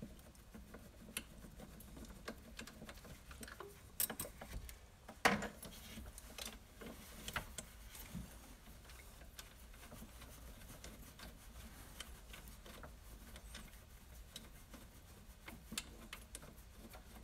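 Scattered small metallic clicks and taps of hand tools and parts being handled on an engine's belt-drive accessories, with one louder knock about five seconds in.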